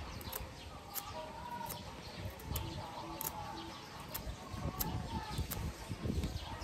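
Small sharp scraping ticks of a knife blade shaving a bougainvillea stem into a wedge for grafting, over birds chirping, with three short low coos about halfway through.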